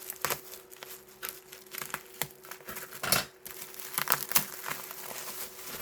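Packaging crinkling and rustling as an item is unwrapped by hand, in irregular crackles, the loudest about three seconds in.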